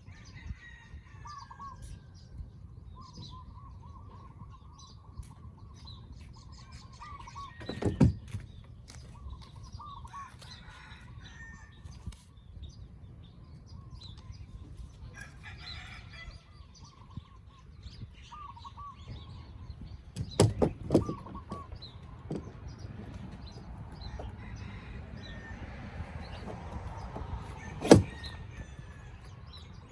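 Bird calls: short chirps repeated again and again over a steady low rumble of wind or water, with three loud knocks about a third of the way in, about two-thirds in and near the end.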